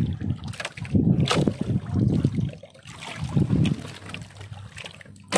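Water lapping against the hull of a small wooden outrigger boat in surges about a second long, with wind rumbling on the microphone. A few light clicks and rubs come as the longline is hauled in by hand.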